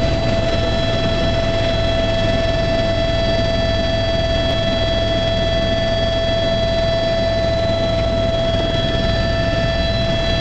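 Eurocopter EC130 B4 helicopter heard from inside the cabin as it lifts off and climbs: a steady high turbine whine over the low beat of the main rotor.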